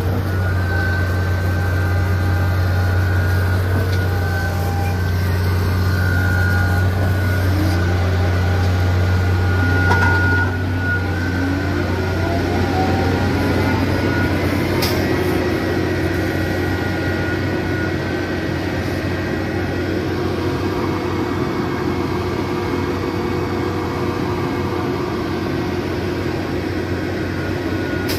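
Heavy truck diesel engines running steadily, with their pitch shifting as engine speed changes. A strong low drone weakens about ten seconds in, and a steadier engine tone takes over.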